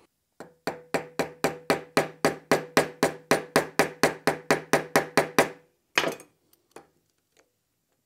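Small hammer tapping a thin steel tool against the metal rim of a Porsche 356 ignition switch housing, about twenty quick, even taps, roughly four a second, with a ringing tone, to work the crimped tabs open. About six seconds in comes one harder hit, then a couple of light taps.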